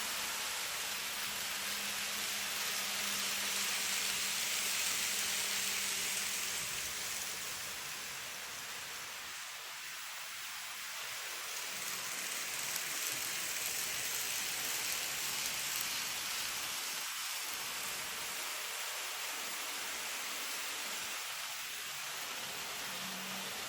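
N gauge model train running on the layout track: a steady rolling whir with a faint motor hum, swelling over the first several seconds as it passes close and then easing off.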